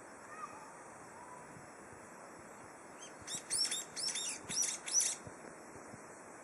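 A small songbird singing a rapid series of high twittering notes about three seconds in, lasting about two seconds, over a faint steady hiss.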